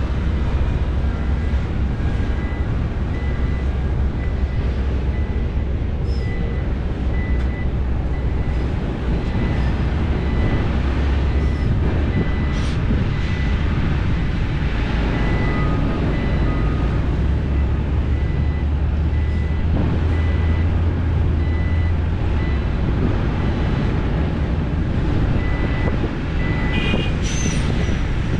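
Heavy diesel engines of an excavator and dump trucks running steadily, swelling louder for a few seconds past the middle, with a reversing alarm beeping over and over at one high pitch.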